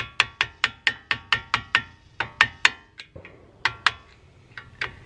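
Light hammer taps on a screwdriver set against a Brembo brake caliper's pad retaining pin, driving the pin out: a quick run of about four or five taps a second, then a few sparser taps with pauses between them.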